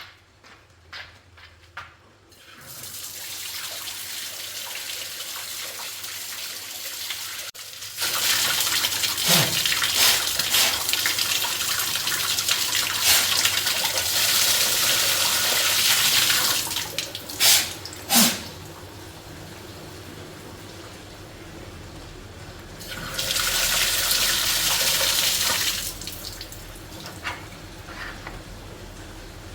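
Water running or spraying in several spells of steady hiss, the longest and loudest lasting about eight seconds, with a couple of knocks in between.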